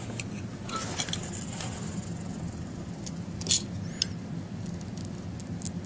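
Small scattered clicks and scrapes as the glass is pried and picked away from an iPhone 3G's plastic frame around the home button, over a steady low hum.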